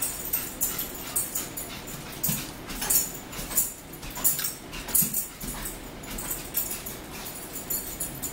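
A dog whimpering a few short times, amid the clicks of a fork on a plate and mouth sounds of eating.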